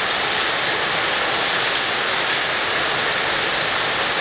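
Heavy downpour of rain mixed with hail pelting a flooded street, a loud, steady, dense hiss with no let-up.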